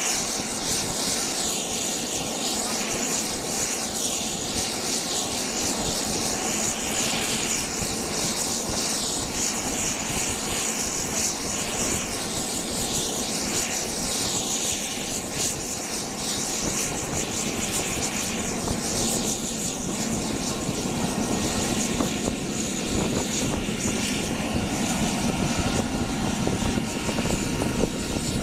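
Bell Boeing V-22 Osprey on the ground with a steady high turbine whine over a constant rushing noise, while its wing and folded-rotor nacelles swing into position; a deeper rumble builds in the last several seconds.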